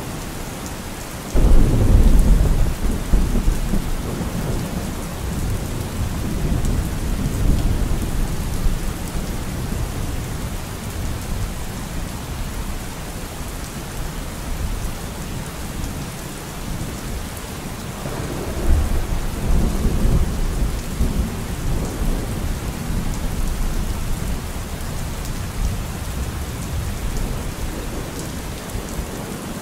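Steady rain falling, with two rolls of thunder: the first and loudest breaks suddenly about a second and a half in and rumbles away over several seconds, the second swells up about two-thirds of the way through.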